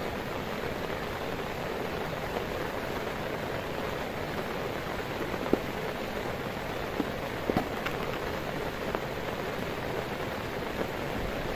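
Heavy rain falling steadily on a tent tarp, with a few sharper single drop impacts in the middle.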